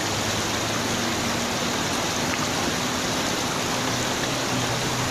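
Steady rush of a flooded river's fast current.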